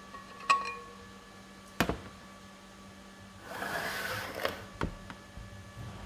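Metal parts and tools handled on a workbench: a clink that rings briefly, a sharp knock, then about a second of scraping or rubbing and another click.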